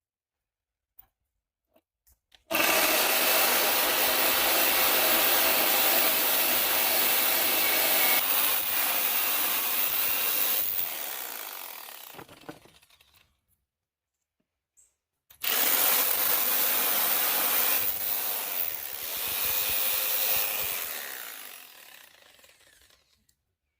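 Reciprocating saw cutting through pallet wood in two runs: a long cut of about ten seconds, a pause, then a shorter one of about seven seconds. Each run trails off at the end as the saw winds down.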